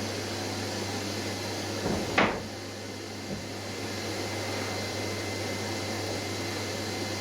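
A steady background hum and hiss, with one sharp wooden knock about two seconds in and a lighter knock about a second later, as sheet boards are handled and set down.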